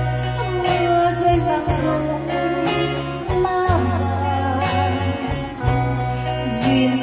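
Live band music from electric guitars, bass guitar, drum kit and electronic keyboard: a melody line that bends in pitch over a steady bass with regular cymbal strokes.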